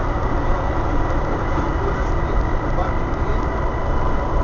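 Interior drone of a Volvo B7TL double-decker bus, its six-cylinder diesel running steadily, heard from inside the passenger saloon with a thin steady whine over it.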